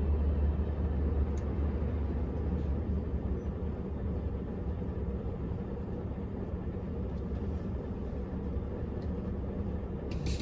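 Steady engine and road noise heard from inside a vehicle's cabin, slowly getting quieter as the vehicle slows to join a queue of traffic.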